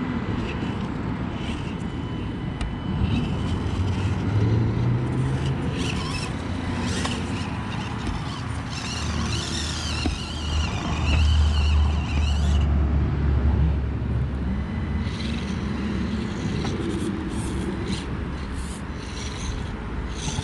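Small electric motors and gearing of 1/24-scale micro RC rock crawlers whining as they drive, with clicks of tyres and chassis on rock. A low rumble swells about nine seconds in and fades a few seconds later.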